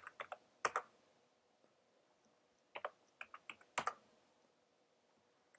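Computer keyboard typing in two short bursts of quick keystrokes, the second about three seconds in, as line lengths are entered.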